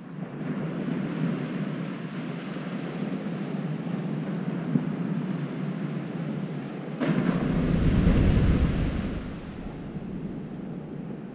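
Ocean surf washing onto the beach, with wind buffeting the microphone. About seven seconds in, a louder gust rumbles on the microphone for a couple of seconds, then eases off.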